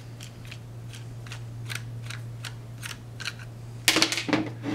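Small Phillips screwdriver backing screws out of a plastic injector faceplate: a run of light clicks, about three a second, over a steady low hum. Louder handling noise from the plastic parts comes near the end.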